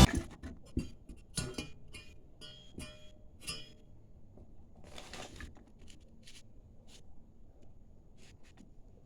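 Scattered light clicks, taps and clinks of small hard parts or tools being handled, with a short rustle about five seconds in.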